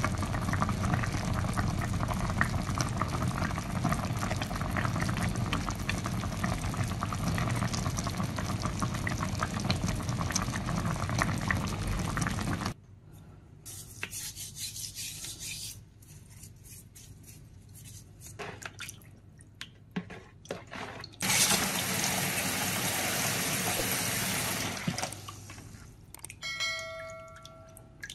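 A loud steady rush dotted with crackles for about the first twelve seconds. Then quieter wet squishing and clicks of hands rubbing salt into raw fish steaks in a plastic basin. About two-thirds through comes a rush of water for a few seconds, then splashing as the steaks are rinsed, and a short chime-like electronic tone near the end.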